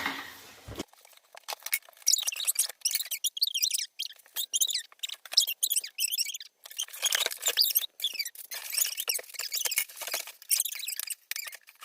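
A taped shipping box being cut and pulled open, with a run of high-pitched squeaks and crinkles from the tape and packing material.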